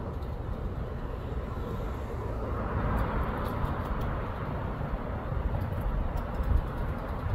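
Steady outdoor rumble of distant road traffic, swelling a little about three seconds in.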